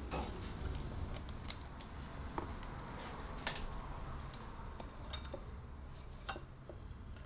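Light, irregular clicks and clinks of small metal parts being handled and set down, over a low hum.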